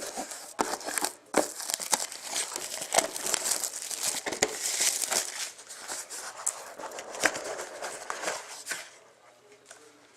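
Plastic shrink-wrap being torn off a sealed box of trading cards and crumpled, a dense crackling and crinkling that stops about nine seconds in.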